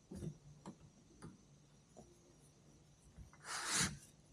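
A few faint light clicks, then a short rasping rub about three and a half seconds in, from hands working the exposed clutch of a motorcycle while its clutch lever is held pulled.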